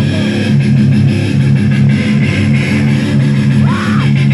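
Live band playing loud, distorted electric guitar and bass chords through the stage amplifiers.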